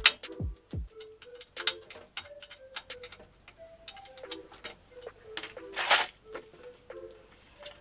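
Background music: an electronic beat with a quick ticking hi-hat pattern and short melodic notes, with deep pitch-dropping bass kicks in the first second.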